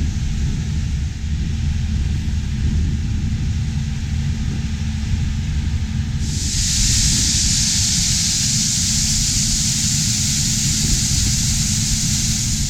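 Farm harvest machinery running with a steady low engine rumble. About halfway through, a loud steady hiss comes in suddenly.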